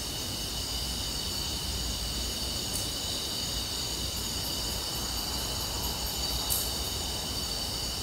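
Steady chorus of night insects such as crickets, several high shrill tones holding on without a break, over a low rumble, with a couple of faint ticks.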